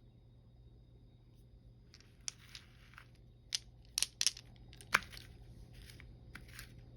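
Candy packaging crinkling and rustling in short bursts, with several sharp snaps or clicks, starting about two seconds in.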